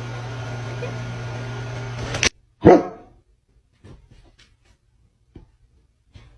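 Steady hum and hiss that cuts off suddenly, then a dog barks once, a single short bark. A few faint clicks follow.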